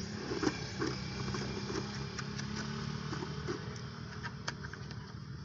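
Car engine idling steadily, with scattered light knocks and clicks.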